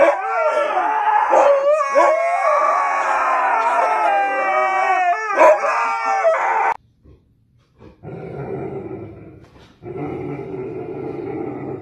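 A husky howling in long, wavering howls that rise and fall in pitch, stopping abruptly about two-thirds of the way through. After a short gap, a lower, steady droning sound follows in two stretches.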